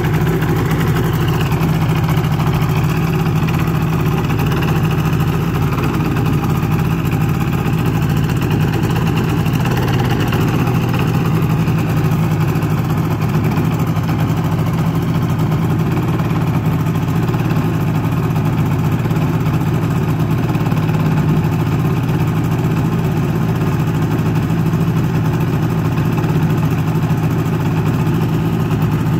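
Rotax 462 UL two-cylinder two-stroke engine of a paramotor trike running steadily, driving its propeller, with a slight dip in speed about a second in.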